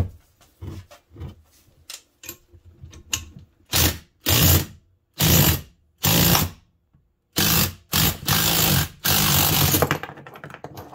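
Cordless Makita impact driver hammering in about seven short bursts, turning a bearing puller's forcing screw to push a tight, stuck bearing out of a snowmobile skid idler wheel. Before the bursts, light clicks and knocks as the puller is handled.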